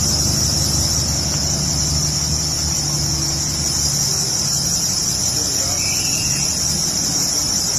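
A steady, high-pitched insect drone over the low, even hum of a vehicle engine idling, likely the pickup truck standing in the flood water. The engine hum drops away about four seconds in, while the insect sound carries on.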